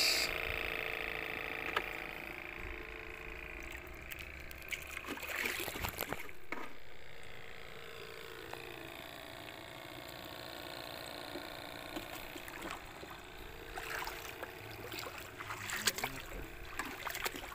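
Shallow seawater sloshing and splashing as people wade and handle a mesh shrimp trap in it, with a few sharper splashes. Faint steady tones run underneath.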